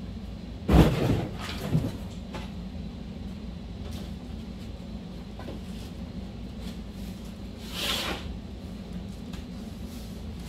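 Cardboard RC car box being handled and opened: a heavy thump about a second in, a smaller knock shortly after, then a rustling cardboard scrape near the end, over a steady low hum.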